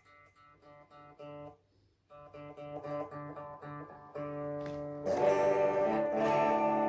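Electric guitar (EVH Wolfgang) played clean through a Roland Cube 60 amp and the Boulevard Effects 3 in 1 pedal's preamp at low settings. Quiet picked single notes, a short break, then louder notes, and about five seconds in a loud strummed chord that rings on.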